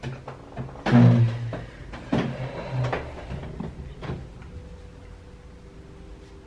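A chair scraping and knocking on the floor as someone gets up from a table: a few knocks, the loudest scrape about a second in, then more scrapes and knocks that die away about four seconds in.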